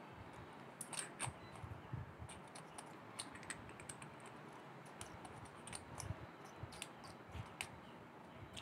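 Faint, irregular small clicks and scrapes as the parts of a colour-sorter ejector valve are handled and a brass cap is fitted onto its black body.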